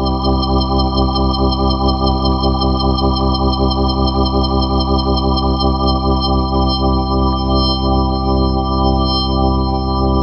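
A 1957 Hammond C3 tonewheel organ holds one sustained chord through a Hammond-Suzuki Leslie 302c rotating speaker. The tone pulses with a quick, even swirl from the spinning rotor.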